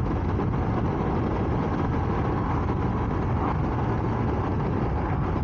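Honda Varadero 125's small V-twin engine running steadily under way at an even cruising speed, mixed with wind and road noise.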